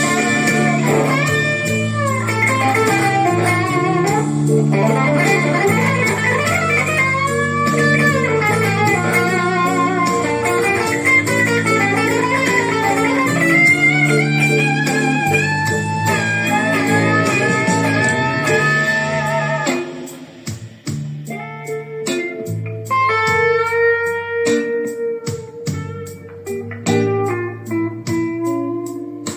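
Slow blues on electric guitar over a backing track, the lead line full of bent notes. About twenty seconds in the accompaniment drops back and the guitar plays sparser, separate phrases.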